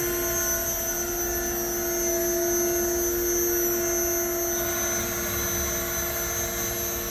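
Hyd-Mech H-230A horizontal bandsaw running through its automatic cutting cycle, a steady hum of several held tones with a thin high whine above. The saw is cutting dry, with no coolant.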